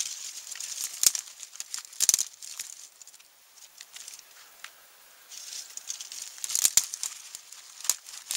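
Small dry sticks snapping by hand, with a crackling rustle of twigs being gathered into a bundle; sharp snaps about a second in, at two seconds, and twice more near the end.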